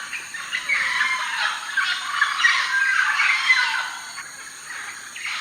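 Many birds calling at once, short gliding calls overlapping thickly, busiest through the middle and thinning out near the end.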